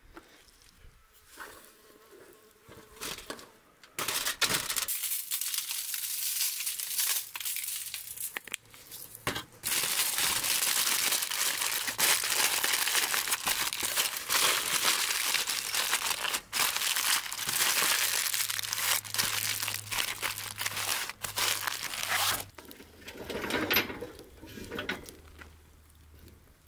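Aluminium foil crinkling and crumpling as it is folded and pressed around food by hand, in long loud stretches with short pauses, dying away near the end; before it, a few faint clicks of a knife slicing on a cutting board.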